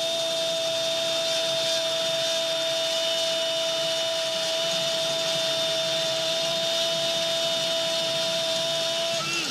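A TV football commentator's long held goal cry, one unbroken "gooool" on a steady high pitch that cuts off near the end, over a stadium crowd cheering the goal.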